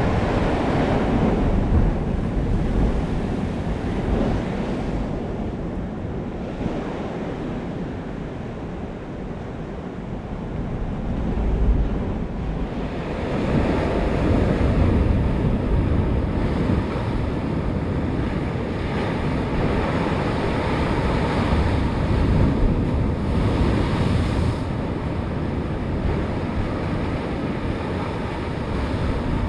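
Sea waves washing on the shore, a continuous rushing that swells about twelve seconds in and again a few seconds later, with wind buffeting the microphone.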